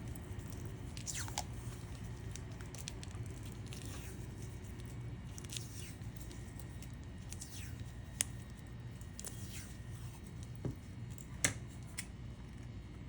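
Electrical tape being pulled off its roll and wrapped around a fibre cable joint, heard as faint, scattered short rasps of tape with a few small clicks of handling.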